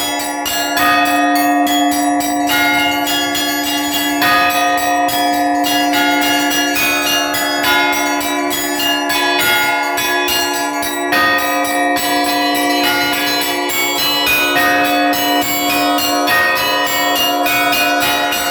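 Orthodox church bell ringing by a single bell ringer on a belfry set of bells. Small bells are struck in quick, dense patterns over the sustained ring of a larger bell.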